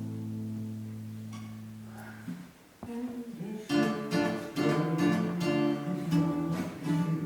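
Acoustic guitar: a held chord rings on and stops about two seconds in, and after a short pause a strummed accompaniment begins, chord after chord.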